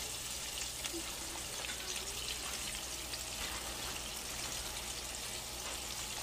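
Fish-fry-coated salmon squares deep-frying in a pot of hot oil: a steady sizzle.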